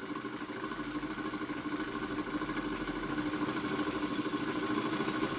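Märklin 4106 vertical model steam engine running steadily under steam, its exhaust making a rapid, even beat. It is running wet, throwing water out with the exhaust from too much water in the boiler.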